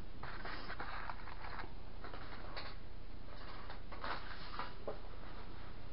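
Faint rustling and light handling noises as small items are moved about on a tabletop, over a steady low background hum.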